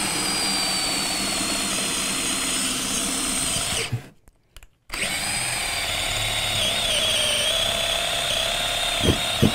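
Cordless drill spinning a Bosch Daredevil 3/4-inch spade bit through a pressure-treated 6x6, the motor whining steadily under load as the bit cuts quickly through the wood. It stops briefly about four seconds in, then runs again, with a sharp click near the end.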